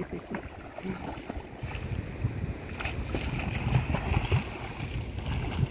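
A child's legs kicking and splashing in shallow sea water, irregular splashes over a steady low rumble of wind on the microphone.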